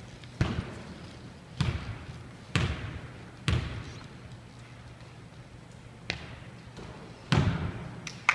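Basketball bounced on a wooden gym floor: four bounces about a second apart, then a pause and more bounces near the end, each ringing briefly in the hall.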